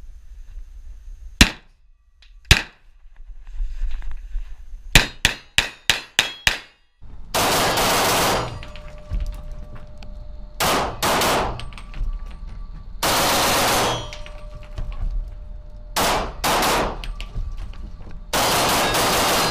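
Glock pistol shots in an indoor range with concrete walls. Two single shots about a second apart are followed by a fast string of about seven. After that come several strings of rapid fire, each about a second long, so loud that the recording overloads into harsh distorted noise.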